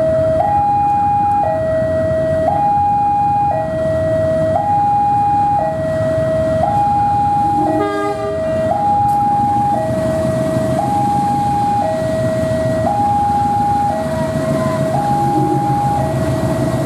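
An electronic two-tone warning alarm alternates between a higher and a lower note, each held about a second, over the steady rumble of a diesel locomotive hauling a passenger train slowly toward the listener. There is a short click about eight seconds in.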